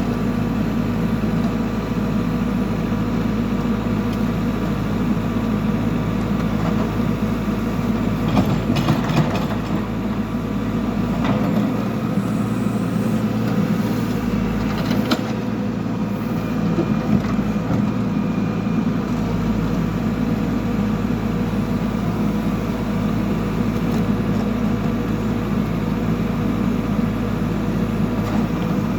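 Backhoe loader's diesel engine running steadily, with a few knocks from the working machine about a third and halfway through.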